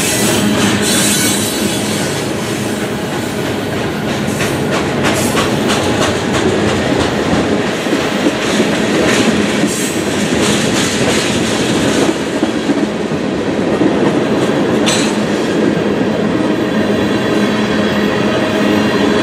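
Freight train's tank cars and boxcars rolling past: a steady rumble of steel wheels on rail, with irregular clicks and clanks as the wheels cross rail joints.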